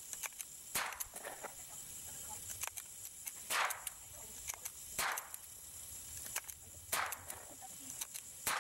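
A .22 bolt-action rifle fired rapidly: several sharp cracks a second or two apart, each with a short echo. Metallic clicks of the bolt being cycled between shots.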